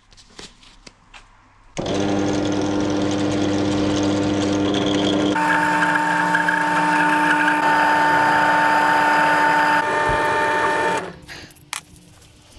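Bench pillar drill starts about two seconds in and runs steadily while its bit cuts into a steel hinge blank. About halfway through, the low hum gives way to a higher whine. The drill stops about a second before the end, leaving a few light handling clicks.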